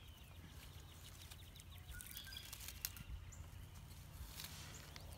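Faint birdsong: scattered chirps and short whistled, gliding calls over a low steady outdoor background, with a sharp click nearly three seconds in.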